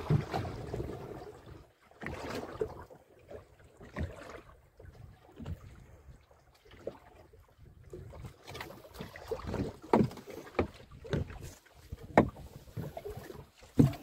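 Wind gusting on the microphone and water lapping against a small open boat's hull, with a run of short, sharp knocks and taps in the second half, the loudest near the middle and at the end.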